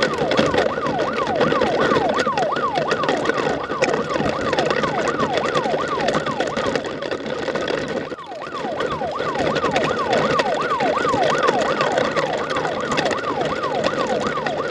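Siren wailing in a rapid cycle: a falling tone repeated about three times a second, over a noisy rumbling background. It breaks off briefly about eight seconds in and starts again.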